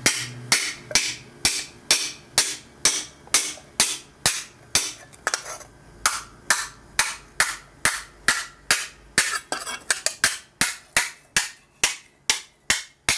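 A hammer strikes a braze-welded aluminum plate over and over, about two to three blows a second and quickening near the end. Each blow gives a sharp metallic clank. The hammering is a strength test, bending the brazed joint.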